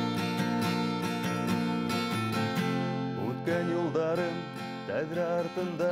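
Acoustic guitar strumming the instrumental opening of a song. About three seconds in, a wavering melody line with vibrato comes in over the guitar.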